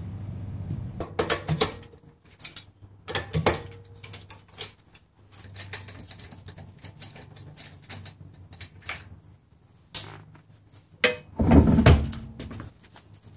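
Socket wrench ratcheting in repeated runs of clicks as the lug nuts are spun off a car's rear wheel studs, then a louder scuffing clunk near the end as the wheel is pulled off the hub.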